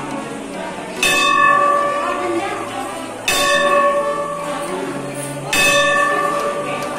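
Temple bell struck three times, a little over two seconds apart, each strike ringing on and slowly fading.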